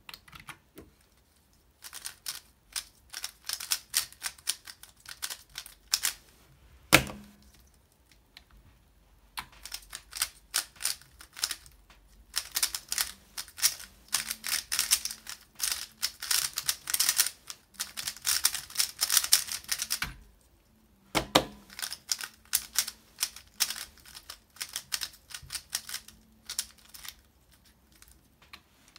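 A YuXin Little Magic 3x3 speedcube being turned fast: runs of rapid plastic clicking as the layers snap around, broken by short pauses, with a sharp knock about a quarter of the way in and another about two thirds in.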